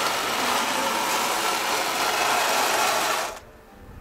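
Radio-controlled model bulldozer running: its small electric drive motors and gearing make a steady, noisy whir that cuts off sharply about three seconds in.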